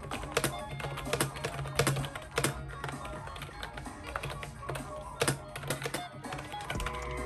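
Fingers typing quickly on a pink keyboard with round typewriter-style keycaps, a run of irregular key clicks, over background music.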